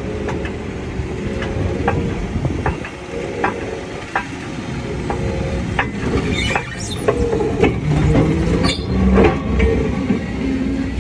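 Toyota FJ Cruiser's 4.0-litre V6 running as the SUV rolls down wooden loading ramps, with a steady engine drone under repeated knocks and squeaks from the ramps. The knocks and squeals get busier and louder in the second half.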